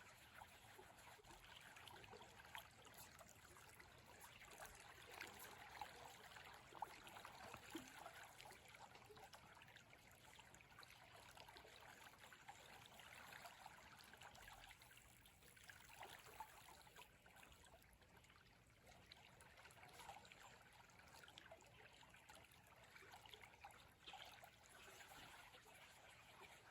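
Faint, steady babbling of a stream's running water.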